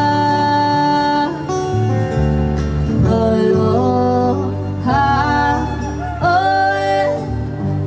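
Live street-performance music: a voice singing long held notes over acoustic guitar and a bass line.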